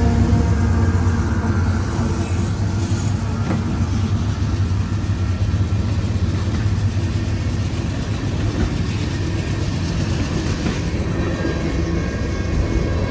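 Freight train passing close by: the last diesel locomotive's engine rumbles past, then tank cars and a flatcar roll by with steady wheel-on-rail noise.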